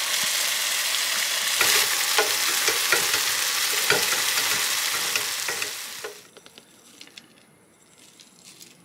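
Orzo frying and sizzling in a stainless steel saucepan on a gas stove, with a wooden spoon scraping and clicking against the pan as it is stirred. The orzo is starting to catch on the bottom. The sizzle cuts off about six seconds in.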